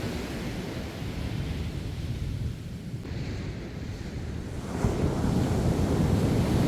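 Ocean surf washing in with wind buffeting the microphone, a steady rushing that swells louder about five seconds in.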